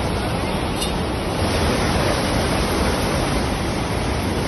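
A river in flood after a storm, its fast, muddy water rushing past in a steady, loud rush of noise as it overflows its banks.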